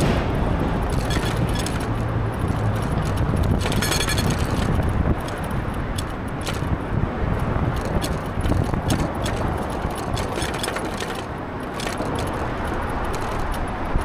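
Riding noise from an e-bike on city streets: a steady low rumble of road and traffic noise with light rattling and clicking from the bike. The rumble eases about five seconds in.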